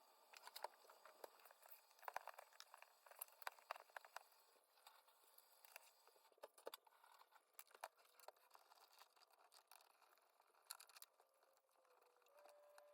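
Near silence with faint, scattered clicks and light rustling, as of small things being handled, busiest in the first half. A faint steady tone comes in near the end.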